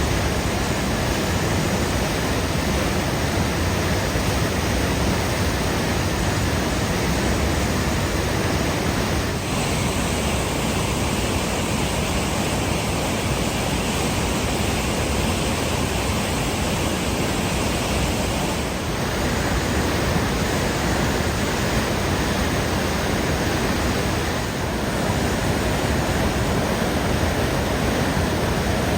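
Steady roar of a McCloud River waterfall, an even rush of falling water, its tone shifting slightly three times.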